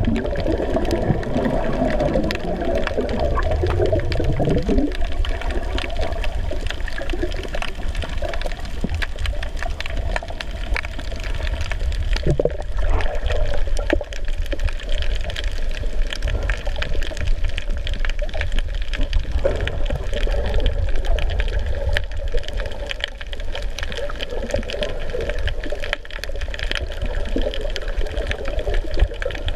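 Underwater water noise picked up by a camera submerged over a coral reef: a steady low rumble of moving water with many faint scattered clicks.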